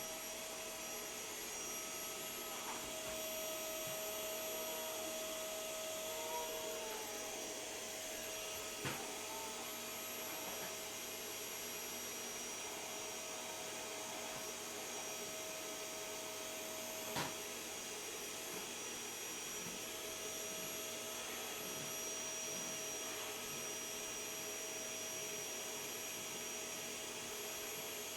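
Vacuum cleaner running steadily with a constant whine from its motor, and two sharp knocks, about a third of the way in and again past halfway.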